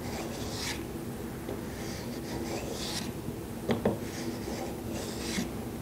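Hand plane shaving a thin walnut strip: several swishing strokes, each lasting under a second, with a light knock a little past the middle.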